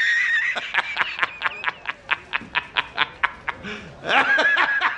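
A man laughing hard in a high voice. It opens on a held squeal, breaks into rapid laughing pulses about six a second, and rises into another squeal about four seconds in.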